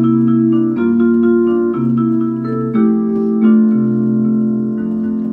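Background music: a light instrumental tune of held keyboard notes, the chord changing about once a second.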